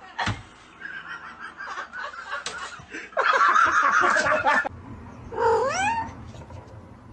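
Domestic cat yowling: a long wavering caterwaul that grows much louder about three seconds in, followed by a shorter call rising in pitch near the end.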